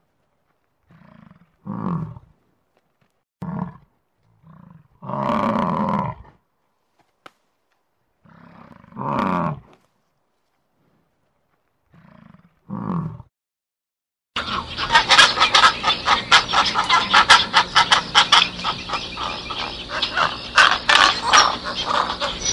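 A large animal giving a series of deep roaring calls, each a short quieter lead-in followed by a louder call of about a second, with silent gaps between. About fourteen seconds in, a different, dense sound full of rapid clicks and steady tones starts abruptly and continues.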